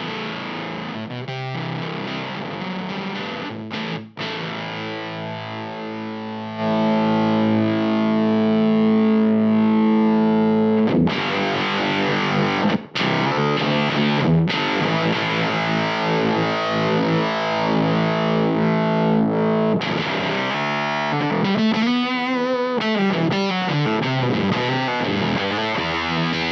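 Electric guitar played through a Teisco fuzz pedal into a Marshall Origin 50 amp, the fuzz's gain set low: sustained distorted chords and notes. It gets louder about six and a half seconds in, and near the end notes bend and waver in pitch.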